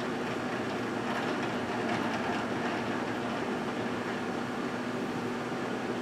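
GE dual-wave microwave oven running: a steady hum that holds level throughout.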